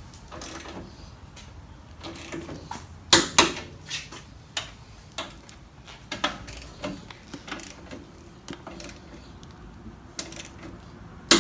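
Irregular clicks and clanks of hand tools and metal parts being worked, with two sharp knocks about three seconds in.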